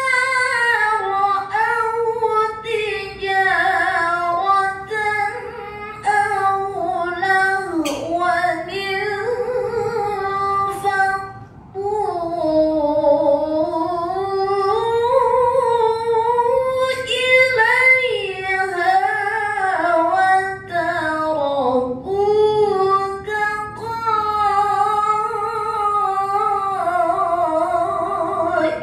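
A woman reciting the Qur'an in the melodic tilawah style: long held notes that bend up and down with ornamented runs, with a short pause for breath about twelve seconds in.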